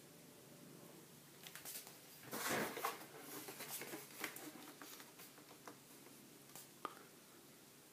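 Hands handling a stormtrooper helmet replica as it is lifted from the table and brought up close: soft knocks, small clicks and rustles. They start about a second and a half in and are loudest about a second later.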